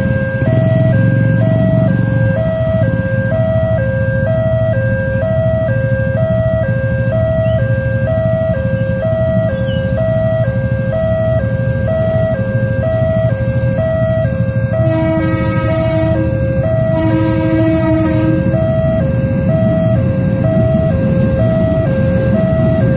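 Railway level-crossing warning alarm sounding a continuous alternating high-low two-tone chime over idling motorcycle engines. About two-thirds of the way through, the approaching KRL commuter electric train sounds two horn blasts.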